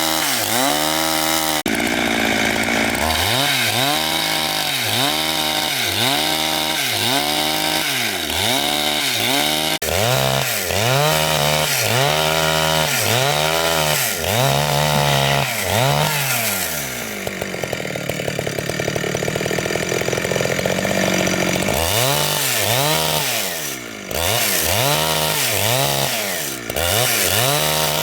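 Chainsaw cutting wood, its engine pitch dipping and rising again over and over as it works through the cut, with a steadier stretch about two-thirds of the way through.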